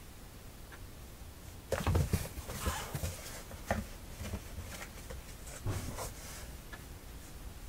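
Two cats scuffling in and against a cardboard box: a burst of scraping, rustling and bumps on the cardboard about two seconds in, then a few softer knocks later.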